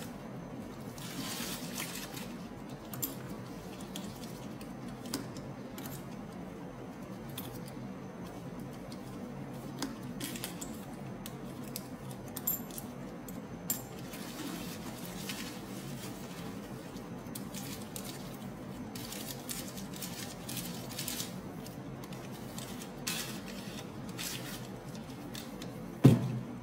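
Protective plastic wrapping rustling and crinkling as it is handled and peeled off a leather handbag, with occasional light clicks, over a steady low hum. A sharper crinkle comes near the end.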